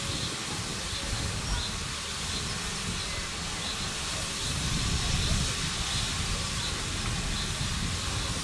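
Steam hissing steadily from a standing BR Standard 9F steam locomotive, over a low rumble that swells about five seconds in.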